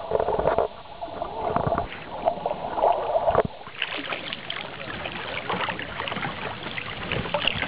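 Water churning and splashing against a small boat as it moves along a narrow channel. A wavering tone sits over it for the first three and a half seconds, after which the splashing turns brighter and busier.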